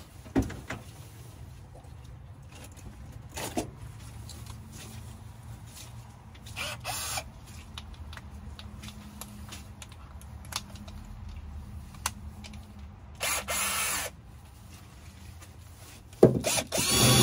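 A power-tool wire wheel run in two short bursts, then spun up again near the end and kept running, brushing rust off a steel fender panel to bare metal for a ground connection. A few sharp knocks of handling come in between.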